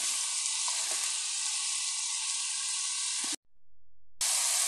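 Ground beef sizzling as it fries in olive oil in a pan, stirred with a wooden spatula. The sizzle cuts out for under a second about three and a half seconds in, then carries on.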